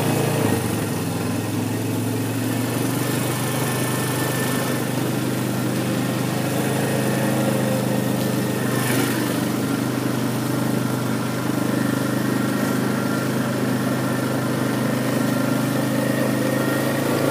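Four-wheeler (ATV) engine running steadily at low speed while it tows a log on a strap.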